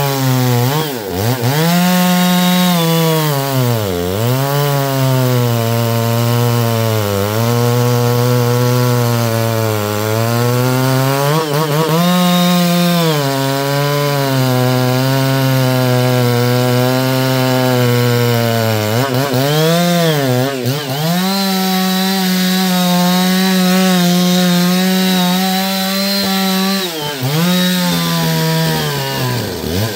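Two-stroke chainsaw cutting through black walnut wood. The engine note sags under load and picks back up several times, and it holds a higher, steady pitch for several seconds past the middle.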